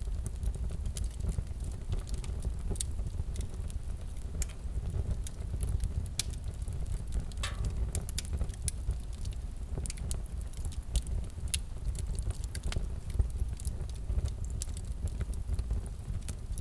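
Fireplace fire crackling, with irregular sharp pops and snaps over a low steady rumble of the flames.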